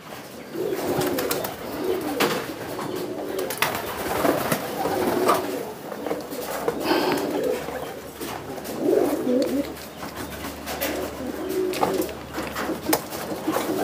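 Domestic pigeons cooing over and over, low warbling calls one after another, with a few sharp clicks and knocks in between.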